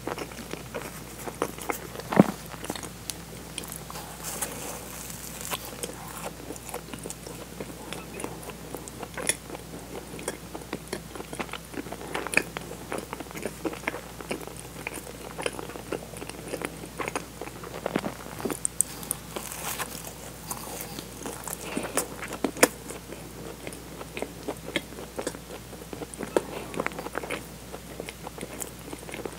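Close-miked chewing and biting of a soft, sugar-dusted, cream-filled doughnut: moist mouth sounds with many short clicks scattered throughout.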